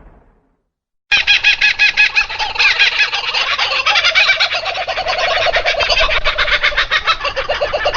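Laughing-birds sound effect: a dense chorus of rapid, cackling bird calls that starts suddenly about a second in and runs on without a break.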